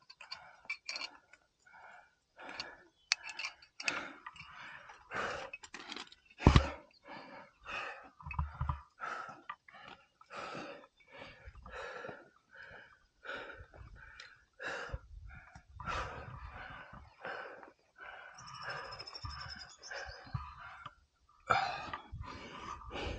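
A climber breathing hard in short, rhythmic breaths, about two a second, close to a helmet-mounted microphone. A sharp knock sounds about six and a half seconds in.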